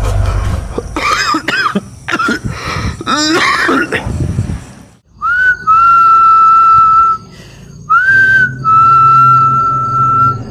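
A high, whistle-like tone held twice, each time for about two seconds at one steady pitch, each starting with a quick upward slide. Before it come shorter, wavering, shifting cries.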